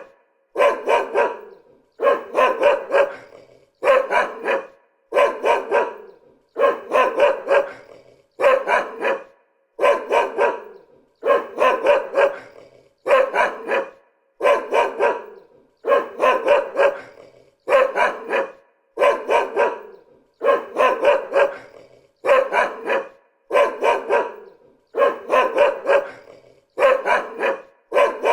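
A dog barking over and over in short groups of two or three barks with brief pauses between, in an even, repeating rhythm.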